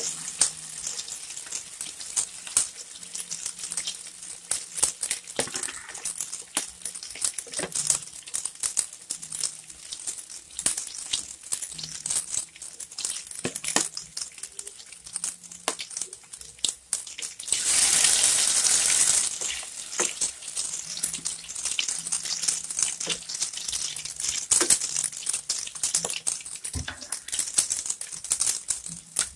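Pork bola-bola patties deep-frying in oil in a wok: a dense, irregular crackling and popping, with a louder hiss lasting about a second and a half a little past the middle.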